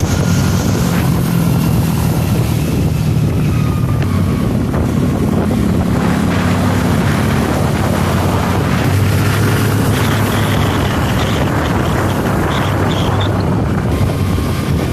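Motorcycle engine running steadily while riding along a road, with wind rushing over the microphone.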